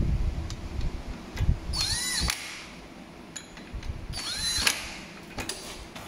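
Cordless impact gun running the two brake-caliper mounting bolts in on an ATV's front brake, in two short runs, each ending in a whine that rises and falls in pitch. The bolts are only being run in, not tightened, with the gun.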